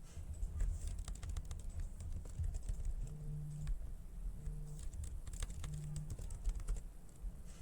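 Typing on a computer keyboard: a steady run of quick key clicks. Three short low buzzes come in the middle.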